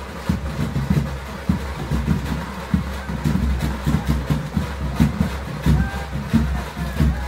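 A motor vehicle's engine running with an uneven low rumble, with scattered knocks and street crowd noise over it.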